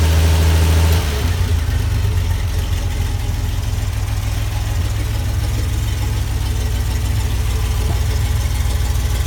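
1968 Jeep CJ5's Buick-built Dauntless odd-fire V6 running at a raised idle, then settling to a lower, steady idle about a second in.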